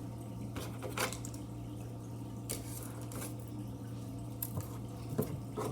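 Bubbles of a silicone pop-it fidget toy being pushed in, giving a handful of separate pops at irregular intervals.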